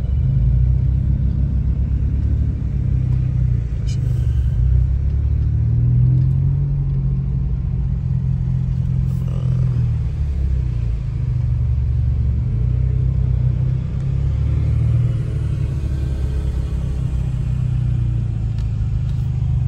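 Ford Mustang's engine and road noise heard from inside the cabin while driving: a steady low rumble that rises and falls a little in pitch.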